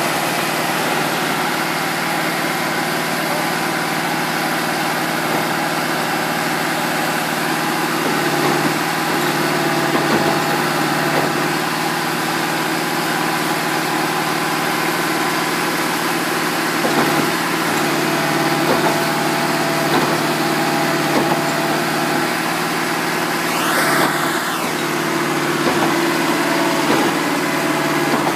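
Diesel engine idling steadily, with a brief whine that rises and falls near the end.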